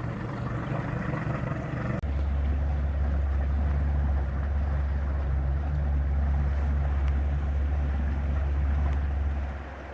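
Boat engine running at a steady low rumble, starting abruptly about two seconds in and dropping away just before the end.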